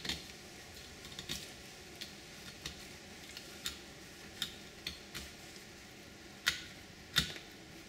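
Fillet knife working a bluegill fillet away from the rib cage on newspaper: scattered small clicks and ticks as the blade crosses the fine rib bones, with two louder clicks near the end.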